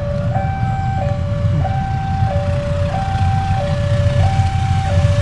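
Railway level-crossing warning alarm sounding, an electronic signal that alternates steadily between a high tone and a lower tone, about two-thirds of a second each, with a steady low rumble underneath.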